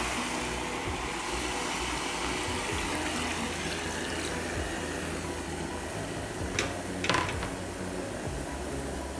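Chicken cooking in a hot pot with a little water, the liquid giving off a steady watery hiss as it heats to steam. Two light clicks about two-thirds of the way through.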